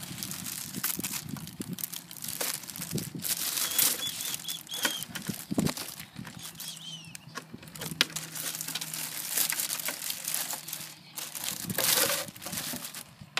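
Clear plastic bag crinkling and rustling as it is handled and pulled off: a continuous run of sharp crackles.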